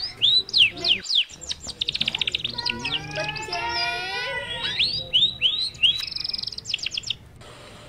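Several small birds chirping and calling over one another, in quick downward-sweeping chirps and fast trills. The calling stops about seven seconds in.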